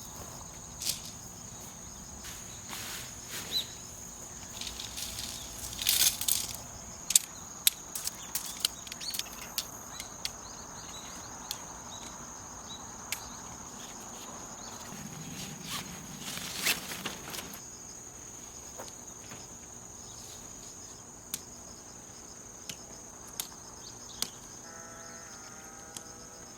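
Crickets chirring steadily in autumn grass, with scattered sharp clicks and light knocks over the top.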